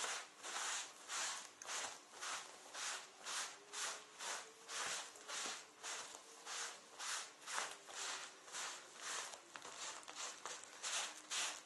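A cloth rubbing back and forth over a leather jacket sleeve in quick, even strokes, about two a second, wiping away the cleaner and the dirt it has lifted.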